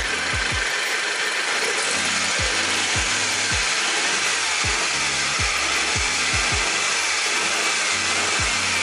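Toyota Corolla 2E four-cylinder engine running steadily with a newly fitted A/C compressor drive belt turning on its pulleys, free of any squeal or slapping. Background music with a deep, steady beat plays over it.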